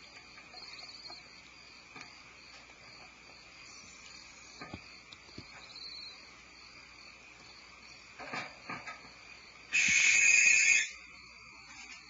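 Barn owl giving one loud, rasping hiss about a second long near the end, after a few soft scrapes and knocks in the nest cavity. A faint, steady, high chirring runs underneath.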